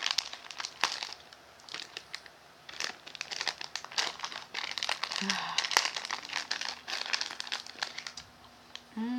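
Plastic snack pouch crinkling as it is torn open and handled, with many short sharp crackles.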